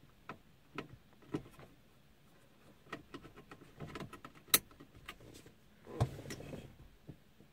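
Light plastic clicks and taps from the dashboard trim around a 9th-generation Honda Accord's hazard button as it is handled and fitted, with one sharper click about four and a half seconds in and a short rustle about six seconds in.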